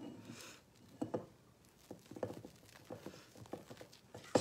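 Spatula folding a thick ice cream mixture in a stainless steel bowl, with irregular soft scrapes and knocks against the bowl. The loudest knock comes near the end.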